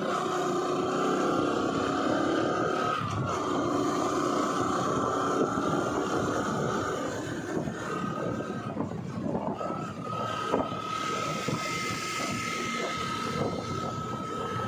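Engine and road noise from a moving two-wheeler, heard from on board. A steady whine runs under it, fades out for a couple of seconds in the middle, then comes back steady.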